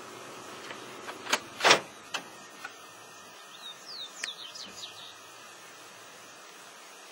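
Two loud, sharp noises about a second and a half in, then a quick run of short, high chirps from blue-winged parrotlets (tuins) over a faint outdoor hiss.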